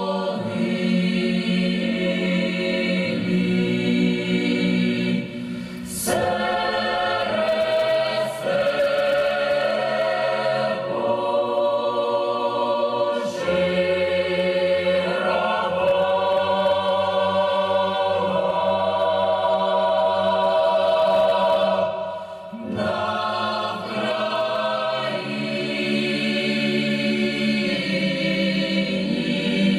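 A choir singing a slow song in long held phrases, with brief pauses between phrases.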